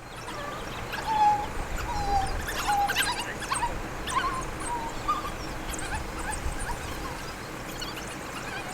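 African wild dogs giving a string of short, high-pitched whimpering calls, mostly in the first half, then fewer.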